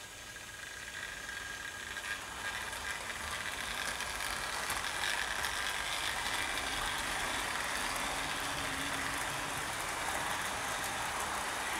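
Wrenn 00 gauge model GWR Castle class locomotive pulling six coaches: its electric motor whirs and its wheels clatter fast over the track and points. The sound grows louder over the first few seconds as the train gathers speed, then runs steadily.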